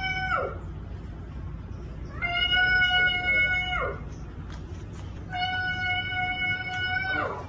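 Long, drawn-out meows: a short falling one at the start, then two of nearly two seconds each, held on one steady pitch and dropping away at the end.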